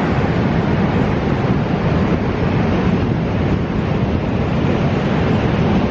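Steady wind buffeting the microphone over the continuous rush of surf.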